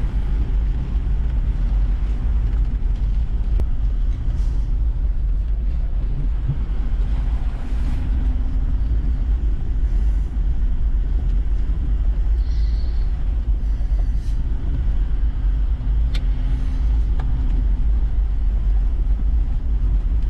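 Toyota Land Cruiser 70 Series driving slowly down a wet dirt track, heard from inside the cabin: a steady low engine and tyre rumble with a few light clicks and knocks.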